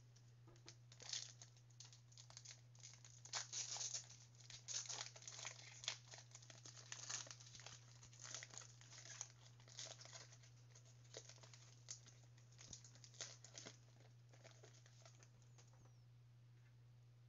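Quiet crinkling and tearing of a Panini Mosaic trading-card pack wrapper as it is ripped open and the cards are handled. The rustling comes in irregular bursts and dies away about fourteen seconds in, over a faint steady low hum.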